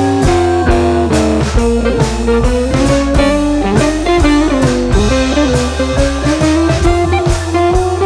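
Background music: a blues-style track with guitar melody over bass and a steady drum beat.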